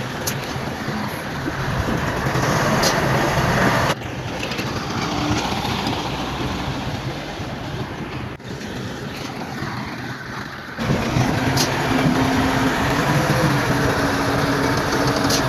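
Bulldozer's diesel engine running with its tracks working, a steady dense machine noise. The noise drops suddenly about four seconds in and comes back louder about eleven seconds in, with a few short sharp clicks.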